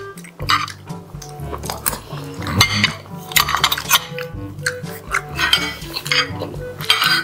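Spoons and forks clinking and scraping against plates, repeatedly, as two people eat.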